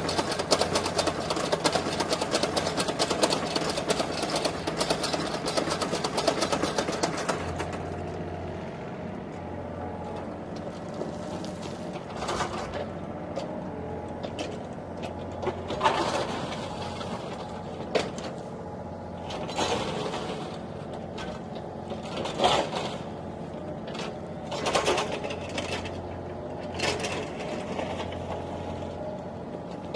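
Toy remote-control excavator's small electric motors and plastic gearboxes whirring and rattling. The sound is dense and continuous for the first seven seconds or so, then comes as short separate whirs every two to three seconds as the boom and bucket move.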